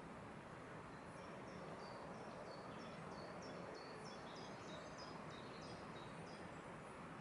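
A small songbird singing a fast run of short, high notes, each sliding downward, about three a second, over a faint steady outdoor hiss.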